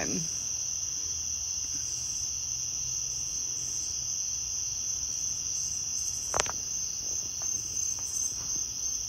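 Steady high-pitched insect chorus, a continuous trill like crickets, with one brief click about six and a half seconds in.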